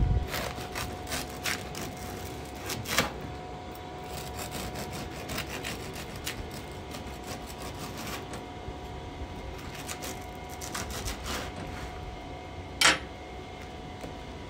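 Serrated bread knife sawing through a crusty loaf on a wooden cutting board, the crust crackling in many small clicks, with a sharper knock about three seconds in and a louder one near the end.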